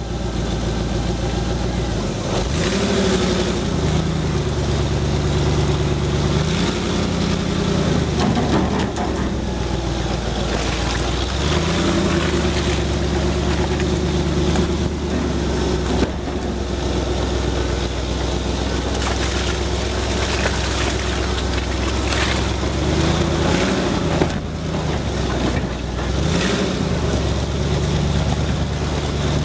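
Engine of an off-road 4x4 running as it drives slowly along a rutted dirt track, its note rising and falling several times as the throttle is worked, with a single sharp knock about halfway through.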